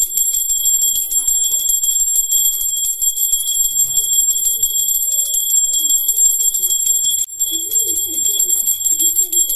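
Hand-held puja bell (ghanti) rung rapidly and without a break during an aarti: a high, bright ringing made of quick repeated strikes, cutting off at the very end.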